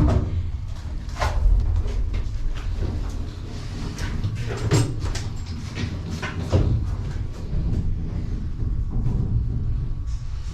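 A handful of sharp knocks and clicks over a steady low rumble, with the strongest knocks at the start, about a second in, near the middle and a little after.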